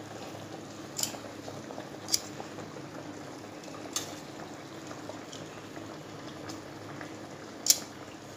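Chicken gravy simmering steadily in a wok, with four sharp clinks of metal tongs against a stainless steel bowl as boiled onion halves are lifted into it; the loudest clink comes near the end.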